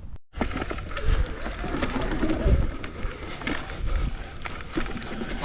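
Mountain bike being ridden over rough trail: tyres rumbling over dirt and rock, with the chain and frame rattling and knocking.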